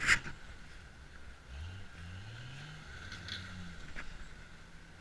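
Lifted off-road truck's engine revving up and falling back several times as the truck works through a mud hole. A sharp knock right at the start is the loudest sound.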